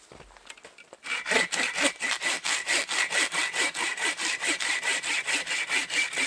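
Hand saw cutting through a piece of wood. It starts quietly, then from about a second in it settles into loud, quick, even back-and-forth strokes.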